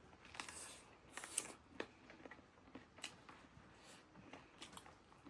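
Faint eating sounds: soft scattered crunches and mouth clicks of chewing food, a few louder ones in the first two seconds.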